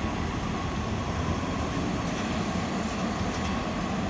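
Class 159 diesel multiple unit moving through the station, its diesel engines giving a steady low drone.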